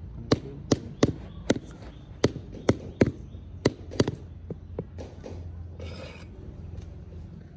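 Rubber mallet tapping paving blocks down into a sand bed: about two sharp knocks a second for the first five seconds, then a few fainter ones, and a short scrape about six seconds in.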